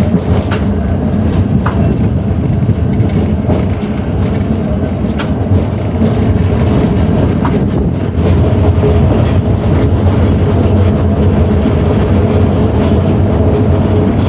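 PCC streetcar running along its track, heard from an open window: a steady rumble and motor hum, with scattered clicks of the wheels on the rails. It grows louder about eight seconds in.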